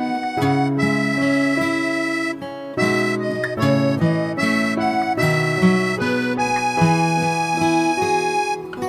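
Background music: a melody of held notes over sustained chords.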